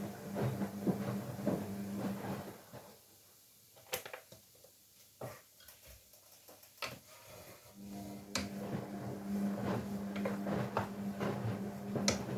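Washing machine running with a steady low hum that stops about two and a half seconds in and starts again about eight seconds in, as the drum pauses between turns in a wash cycle. Light clicks and clatter of kitchenware sound over it.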